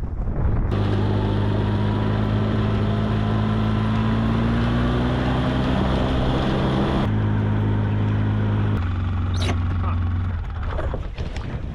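Powered ice auger drilling a hole through lake ice: a steady motor note with the grinding rasp of the bit cutting. The grinding cuts off suddenly about seven seconds in, as the bit breaks through, and the motor runs on at a changed pitch before stopping near the end.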